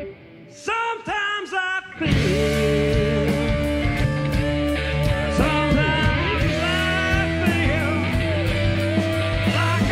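Live rock band with electric guitars, bass, keyboards and drums, with a lead singer. The band stops briefly, leaving a few short phrases on their own. About two seconds in the full band comes back in, and the vocal line continues over it.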